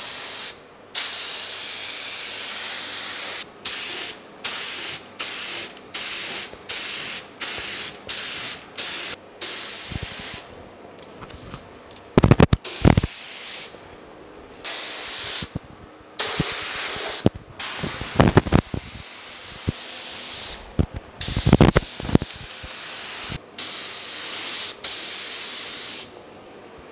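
Compressed-air paint spray gun hissing as it sprays clear coat. The trigger is held for longer passes and also released in a quick run of about a dozen short bursts. A few loud knocks come around the middle and again about two-thirds through.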